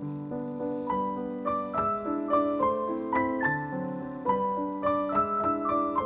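Background piano music: a gentle melody of single notes over held lower chords. The notes quicken to about two or three a second after the first second.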